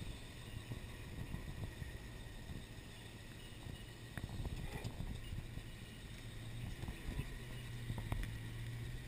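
Off-road 4x4's engine running steadily at low revs as it crawls over a rocky, log-strewn mud track, with scattered knocks as the tyres climb over rocks and logs.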